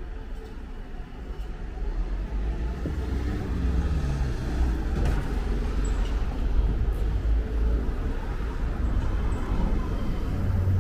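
A motor vehicle running close by in city street traffic: a low engine rumble that swells about two seconds in, with the engine pitch shifting for a moment soon after.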